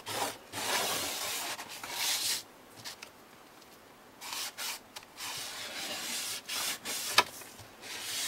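Old sponge and tape residue being scraped and rubbed off the metal needle retainer bar of a Brother knitting machine, through a wet tissue that softens it for removal. Rough scraping strokes for about two seconds, a pause of about two seconds, then shorter repeated strokes with one sharp click about seven seconds in.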